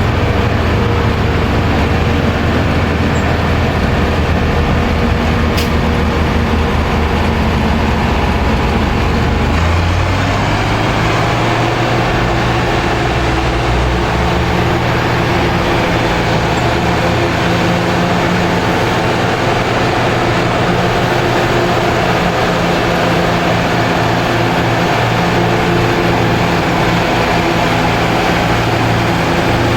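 Heavy diesel tractor engines running steadily under load while chopping maize. The engine note shifts to a different pitch about ten seconds in.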